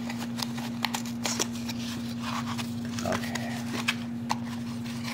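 Small cardboard parts boxes and plastic packaging being handled: scattered light clicks, taps and crinkles as a box flap is opened, over a steady low hum.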